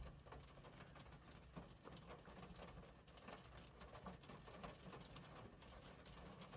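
Near silence: faint room tone with a low hum and scattered faint ticks.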